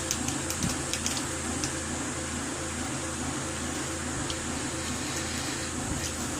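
Steady background hum and hiss of room noise, with a few light clicks in the first couple of seconds.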